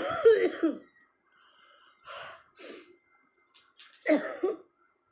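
A woman coughing, a loud fit at the start and another about four seconds in, with breathing between. The coughing comes from sniffing spicy jaljeera powder to bring on sneezes.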